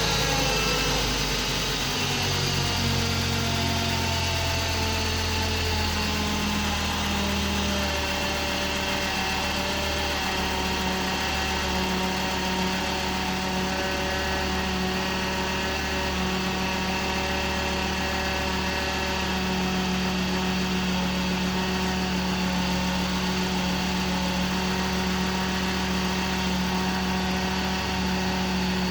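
Rebuilt Ford Mondeo XR5's turbocharged 2.5-litre five-cylinder engine on its first start: the revs drop over the first couple of seconds, then it idles steadily.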